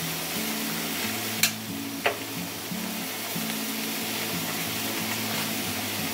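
Pot of ramen broth boiling steadily, a continuous hiss, with two sharp clicks of metal tongs about half a second apart, around a second and a half in.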